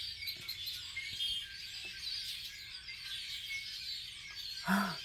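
A chorus of many small birds chirping and trilling together from the trees, with a brief low voice-like sound near the end.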